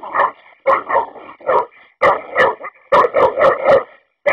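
American Staffordshire Terrier barking loudly and repeatedly, about a dozen short barks in quick runs.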